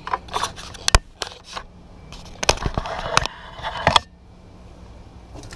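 Handling noise at the snake enclosure: a string of sharp clicks and knocks, then a busier stretch of knocking and scraping that cuts off suddenly about four seconds in.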